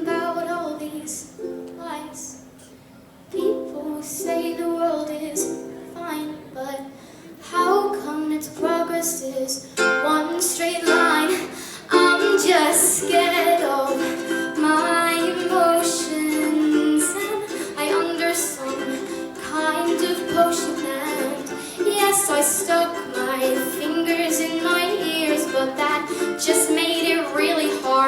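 A young girl singing while strumming a ukulele. The strumming grows fuller and louder about twelve seconds in.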